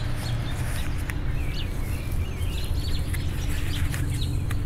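Birds chirping faintly over a steady low hum.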